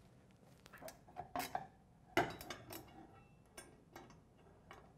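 Light, irregular metallic clinks and taps of small bolts, nuts and a socket wrench against steel license and reflector brackets as they are bolted together on a wooden table.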